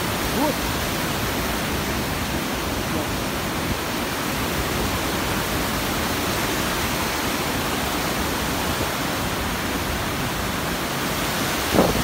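Steady rush of a white-water mountain torrent running over rocks. A brief pitched sound cuts in just before the end.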